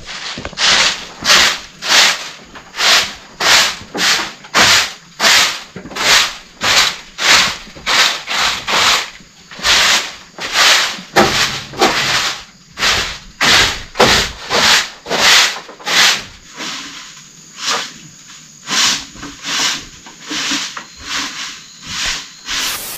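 Footsteps rustling through dry leaves and grass at a steady walking pace, about two steps a second, the steps getting lighter in the later part.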